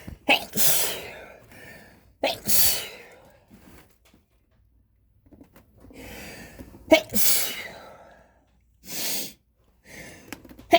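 A person sneezing again and again, set off by dust: an allergic fit. Sharp sneezes come a second or more apart, with the loudest about seven seconds in and a shorter breath-like burst near the end.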